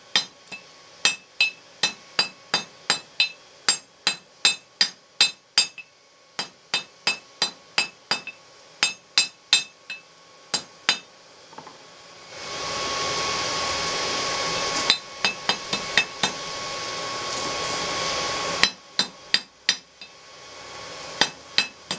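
Hammer blows ringing on hot rebar against an anvil, at a steady two to three a second, flattening the end of the bar. About halfway through, the blows pause and a steady rushing hum of the forge blower runs for about six seconds, with a few blows over it. Then the hammering picks up again.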